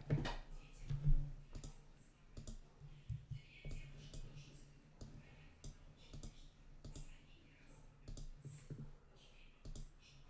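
Computer mouse clicking: a dozen or more sharp, irregular clicks, with a couple of louder knocks in the first second, over a faint low hum.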